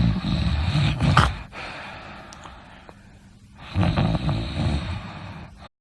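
A person snoring: two loud snores about three seconds apart, each with a rapid low flutter. The first peaks sharply about a second in. The sound cuts off abruptly near the end.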